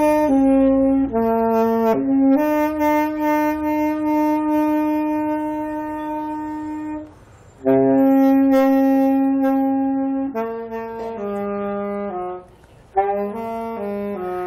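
A solo saxophone plays a slow melody of long held notes. There are two brief gaps, one about halfway and one near the end, and the last notes are shorter.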